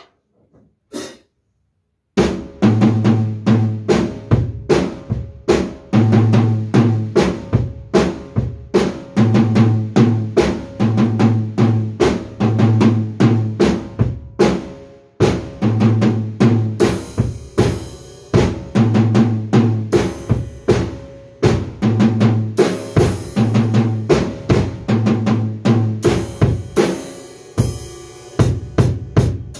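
A few sharp clicks, then about two seconds in a drum kit starts playing a steady rock beat on bass drum, snare and cymbals.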